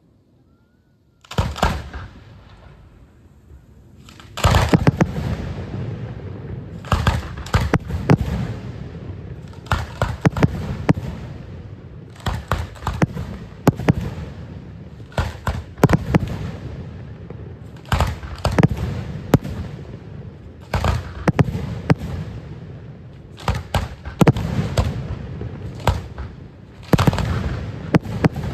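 Fireworks display: a single loud bang about a second in, then from about four seconds a dense barrage of exploding shells, sharp bangs several a second with crackling between them.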